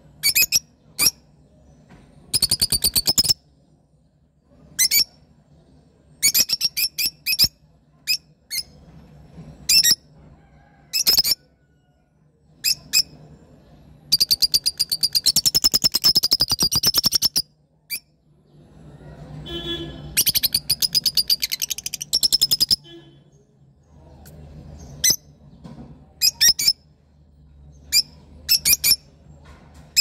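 Rosy-faced (peach-faced) lovebirds calling: shrill, high chirps in short rapid bursts, with two longer runs of fast chattering about halfway through.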